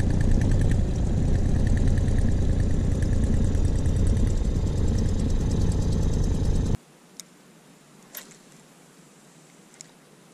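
Small boat's outboard motor running steadily at trolling speed. The sound cuts off abruptly about seven seconds in, leaving a low hush with a few faint clicks.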